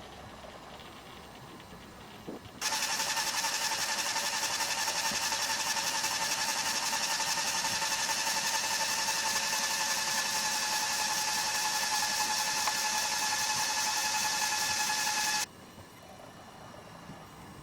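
Small electric motor and gearing of a fischertechnik model running with a steady, even whine of several fixed pitches; it starts abruptly about two and a half seconds in and cuts off sharply about thirteen seconds later.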